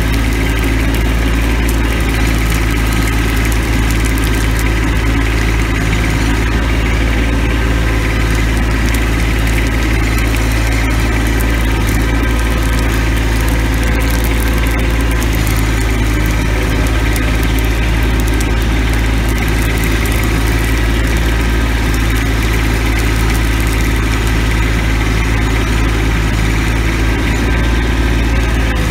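Tractor engine running steadily at an even pitch, heard close up from the operator's seat.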